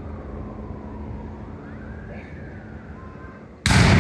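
Steady low rumble and wind, then a single very loud blast from a saluting gun near the end, sudden, with a rumbling echo that carries on.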